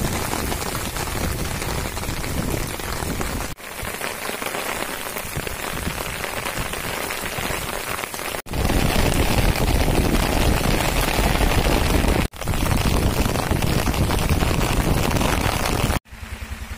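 Rain falling steadily on floodwater and a wet road, an even hiss. The sound breaks off abruptly several times between takes. From about eight seconds in it is louder, with a deep rumble under the rain.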